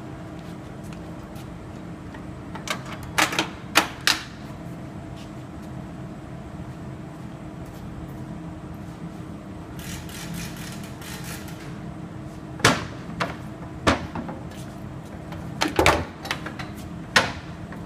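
Scattered clicks and knocks of a table saw's blade guard and a tape measure being handled on the metal saw table, with a short rattling stretch midway, over a steady low hum.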